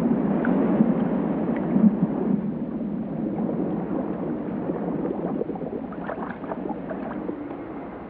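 Water sloshing and gurgling against rocks and kelp, a steady watery noise that eases off a little toward the end, with a few faint short sounds near the end.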